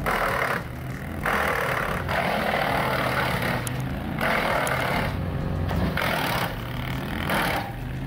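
Wood chipper's engine running steadily while its blades chip a log being fed into the hopper, heard as repeated bursts of coarse grinding and crackling, from half a second to a few seconds long, with short lulls between bites.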